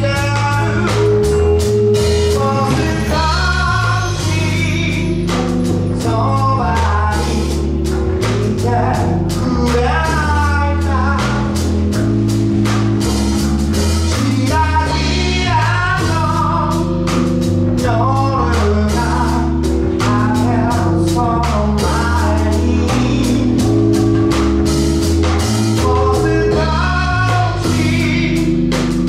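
Live band playing a song: a male lead vocal over keyboard, electric bass, congas and drum kit, with a steady beat.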